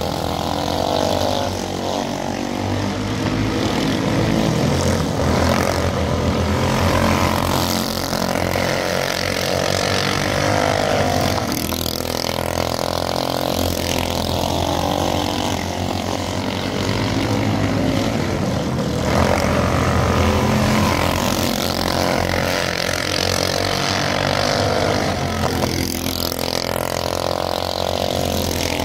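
A pack of 390cc single-cylinder four-stroke race karts running flat out on a dirt oval, several engines at once. Their pitch rises and falls over and over as they rev through the turns and pass by.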